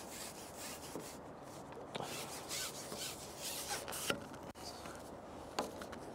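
Handling noise: scratchy rubbing and rustling as a carbon fishing pole is held and shifted on its rest and the angler's clothing moves, with a few light clicks.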